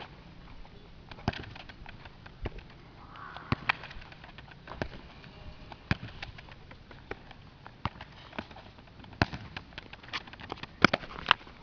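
A futsal ball being dribbled and kicked on a concrete court: sharp, irregular slaps of shoe on ball and ball on concrete, mixed with quick footsteps.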